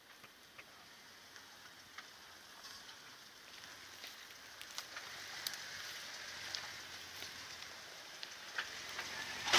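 Loose dirt and gravel crackling and crunching under a Jeep Wrangler JK's tyres as it crawls slowly over a rocky mound, with scattered sharp pops of stones, growing steadily louder as it comes closer.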